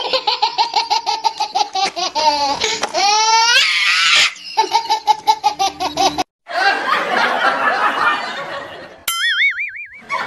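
Loud, rapid ha-ha-ha laughter in quick, even pulses, rising in pitch partway through, then a second burst; it breaks off suddenly, a noisy stretch follows, and a short warbling, whistle-like tone sounds near the end.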